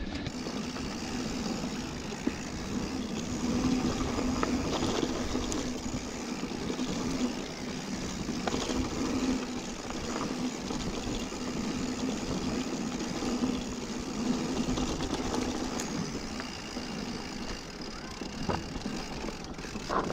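Mountain bike rolling along a dirt trail: steady tyre and riding noise with scattered clicks and rattles from the bike.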